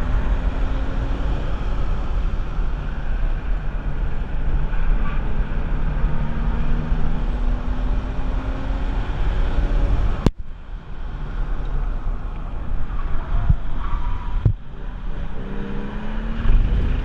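Porsche 996's 3.6-litre M96 flat-six driven hard on track, its note rising and falling with wind rushing over the microphone. The sound breaks off abruptly about ten seconds in and comes back quieter, then the engine note climbs again near the end.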